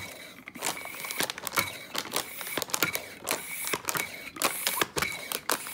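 Hand pump for a vacuum storage bag working on the bag's valve, drawing the air out: a dense, irregular run of sharp plastic clicks with rustling of the bag.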